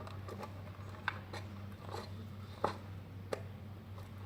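Slime being stirred in a bowl after the activator goes in: scattered wet, sticky clicks and ticks, with a steady low hum behind.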